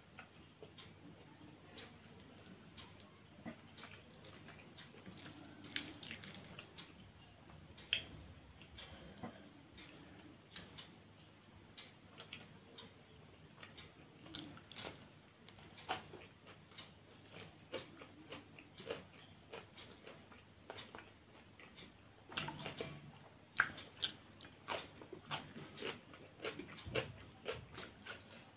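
A person chewing food with the mouth close to the microphone: many small, irregular wet clicks and smacks. They grow denser and louder during the last third.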